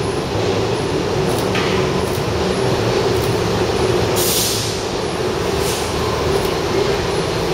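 A 1920s A1-class Berlin U-Bahn train pulling into an underground station, with a steady rumble of wheels and running gear. A brief hiss comes about four seconds in.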